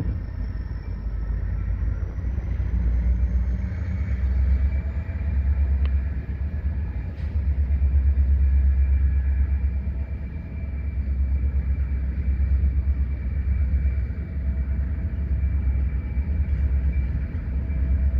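Freight train of covered hoppers and boxcars rolling along the yard tracks: a continuous low rumble that swells and fades every couple of seconds.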